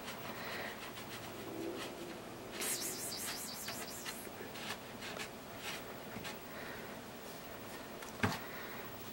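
A kitten and a puppy scuffling in play: light rustling with scattered small clicks and taps, a louder burst of rustling about three seconds in, and a single sharp knock near the end.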